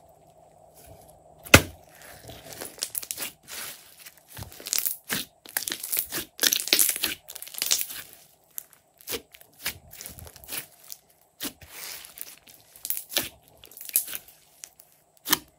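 Large mass of glossy slime being squished, stretched and kneaded by hand, giving irregular sticky clicks, pops and crackles. One sharp pop comes about a second and a half in, and a dense run of crackling follows in the middle.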